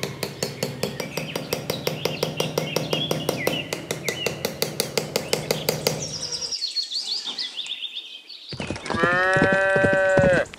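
Rapid light hammer taps, about eight a second, driving small wooden posts into sand, which stop about six seconds in. Near the end a cow moos once, long and loud.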